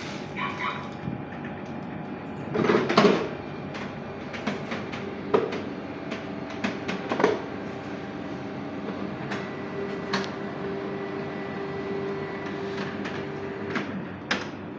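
Colour laser printer powering up and initialising: scattered mechanical clicks and knocks, a louder clatter about three seconds in, and a steady motor whir for several seconds later on, over a constant low hum.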